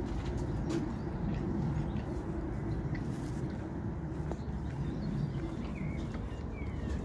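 Outdoor ambience: a steady low rumble with a few faint bird chirps near the end.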